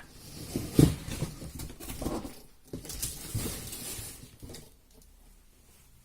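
Irregular handling noises, knocks and scuffs, with a firmer knock about a second in, dying away after about four and a half seconds.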